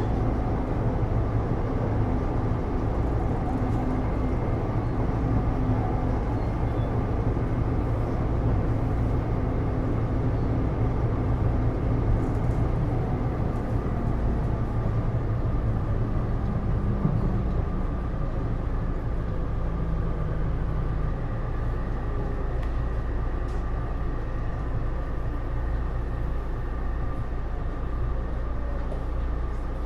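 Inside a Taipei Metro Series C301 car with Bombardier IGBT-VVVF traction equipment: steady rumble of the train running on the rails, with a faint hum from the traction gear that steps down in pitch about halfway through.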